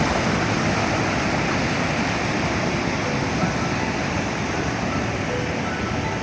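Mountain stream cascading over boulders and small waterfalls: a steady, dense rush of water.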